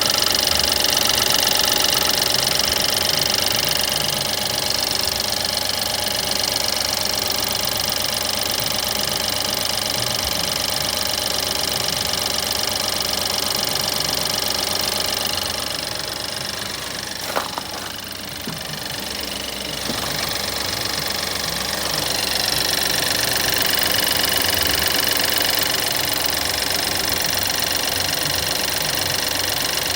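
2014 BMW 528i (F10) turbocharged 2.0-litre four-cylinder engine running steadily, with a knock noise that the owner places on the passenger side. A little past halfway the sound drops for a few seconds and there is a single sharp click.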